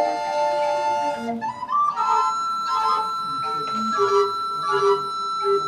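Recorder ensemble playing in parts: held chords of several recorders, then a long high note sustained over moving lower voices and a bass line.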